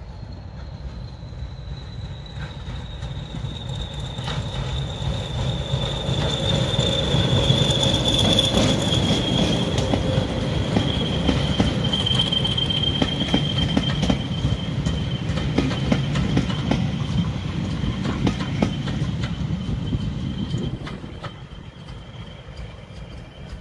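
Passenger train of coaches rolling past on jointed track: a low rumble that builds as it passes, wheels clicking over the rail joints, and a thin high wheel squeal that slowly falls in pitch. The rumble drops away suddenly near the end as the train recedes.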